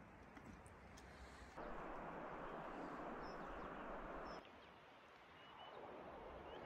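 Faint outdoor ambience: a steady hiss that gets louder for about three seconds, starting and stopping abruptly. A few short, high bird chirps sound over it.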